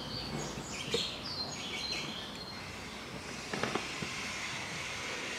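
Birds chirping in the background over a steady hiss of ambient noise, with a single light click about a second in and a few faint clicks and taps near the end, as tools are handled.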